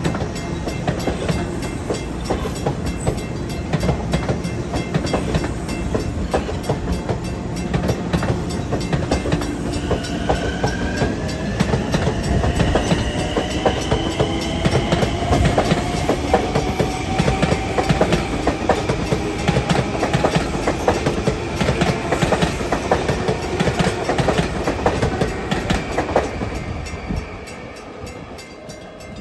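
Long Island Rail Road train passing, its wheels clattering rapidly over the rail joints, with a faint whine slowly rising in pitch. The noise fades away near the end as the train moves off.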